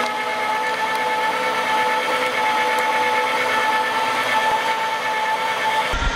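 Electric meat grinder's motor running with a steady whine while it forces soft red jelly candy out through the grinding plate. A low rumble comes in at the very end.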